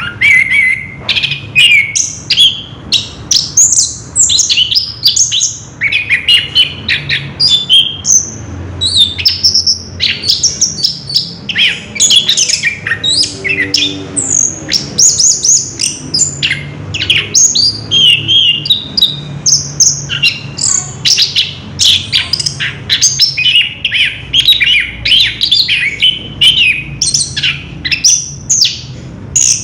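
Orange-headed thrush (anis kembang) singing a long, nearly unbroken rolling song of quick, varied whistles and chirps, with hardly a pause.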